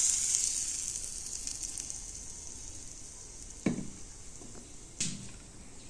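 Hot mustard oil with fried fenugreek seeds poured over cut radish and spices, sizzling with a high hiss that fades away over about three seconds. Two light knocks follow near the end.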